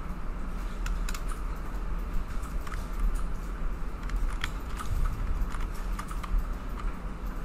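Scattered clicks of a computer keyboard and mouse as shortcuts and clicks are made, over a steady low electrical hum.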